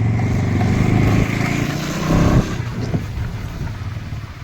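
Motorcycle engine running while riding, with road and wind noise. The engine pulls harder to a peak a little past two seconds in, then eases off.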